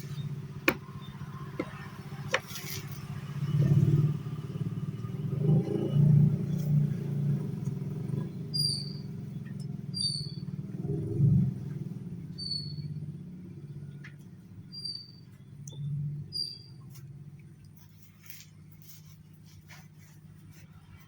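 Low engine rumble of passing road vehicles, rising and falling, with scattered clicks. From about eight seconds in, a bird gives a short high chirp about every second and a half, six times.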